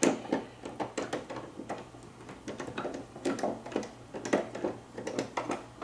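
Irregular light clicks and taps of small metal screws being handled and fitted by hand into a TV's plastic stand feet.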